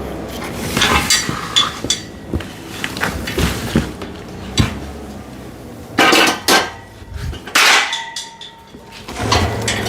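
Metal parts of a hydraulic car-ramp kit being handled and unpacked: a run of knocks and clinks, with two louder rustling or scraping bursts about six and eight seconds in.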